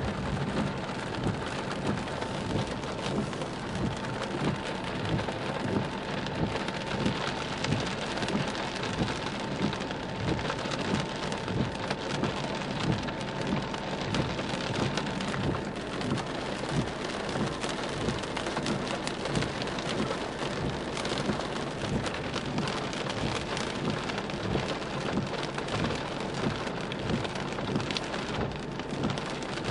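Heavy rain pelting a car's windshield and roof, heard from inside the car as a dense, steady patter of drops. A faint steady whine sounds underneath through the first half and then fades out.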